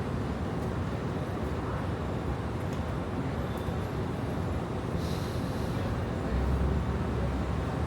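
Steady low rumble of a subway station with trains and traffic. A brief high hiss comes about five seconds in, and a deeper rumble swells near the end.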